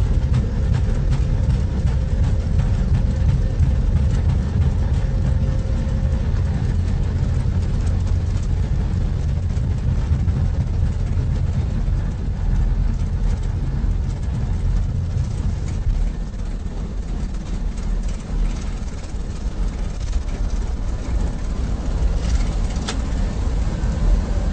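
Airbus A320 flight deck during take-off: a steady deep rumble of the jet engines and airflow, with a faint thin tone that fades out about six seconds in and a single sharp click near the end.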